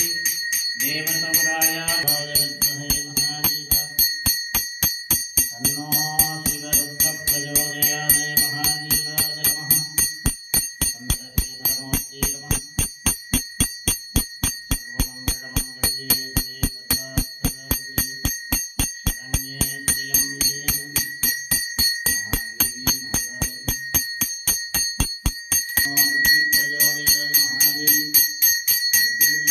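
Puja hand bell rung steadily for the lamp aarti, about three to four strikes a second with a continuous ring. Over it, Sanskrit mantras are chanted in several stretches.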